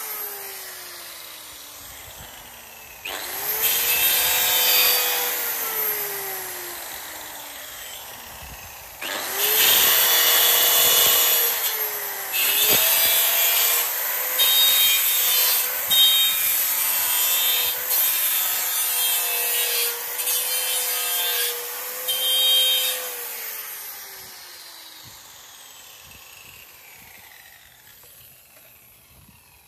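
Handheld electric circular saw cutting through plywood. The motor is winding down at first, starts again about three seconds in and cuts, then slows. It starts again about nine seconds in and cuts loudly for some fourteen seconds, then winds down with a falling whine.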